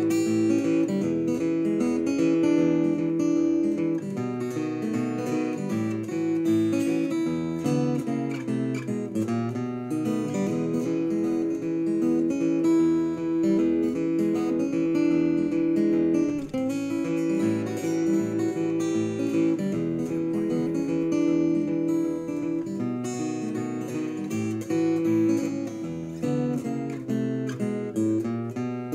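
Acoustic guitar playing an instrumental blues tune in quick runs of picked notes.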